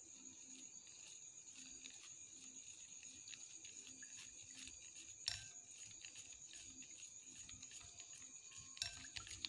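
Faint whisking of milk and condensed milk in a glass bowl, with a few sharp taps of the whisk against the glass about five seconds in and near the end. A steady high, thin whine sits underneath.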